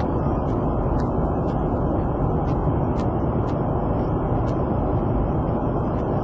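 Airliner cabin noise: a steady, even rumble of jet engines and airflow.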